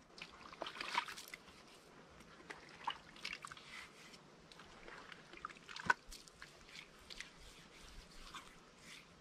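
Hands scooping wet clay from a plastic bucket and smearing it over a brick stove: small wet squelches, drips and slaps, with one sharp knock about six seconds in.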